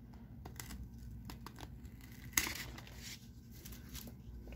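Faint paper rustling and light clicks from a CD soundtrack booklet and its paper insert being unfolded and paged by hand, with one sharper tick about two and a half seconds in.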